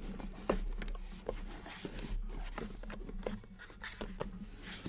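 Cardboard shipping case being handled and opened: flaps scraping and rustling, with several light knocks and taps, the sharpest about half a second in.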